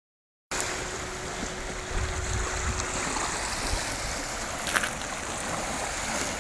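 Surf: waves washing onto a sandy shore, a steady rush of water that cuts in abruptly about half a second in, with a brief click near the end.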